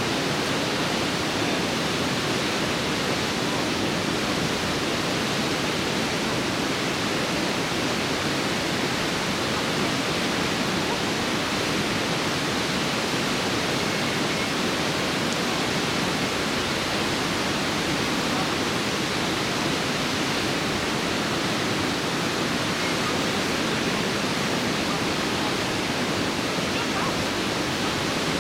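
River water pouring over a weir, a steady, unbroken rush of falling water.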